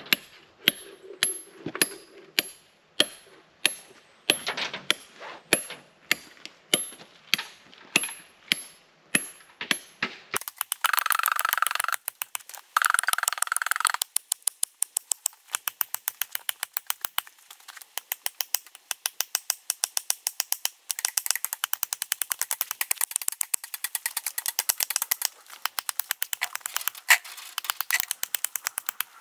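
Hand hammer striking steel plugs and feathers (splitting wedges) set in a line of holes in a granite block: sharp, ringing metal-on-steel strikes about two a second for the first ten seconds, then a much faster, dense run of strikes. The wedges are being driven to split the block.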